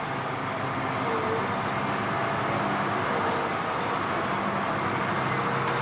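Steady mechanical roar with a low hum underneath: the background noise of an aircraft carrier's flight deck.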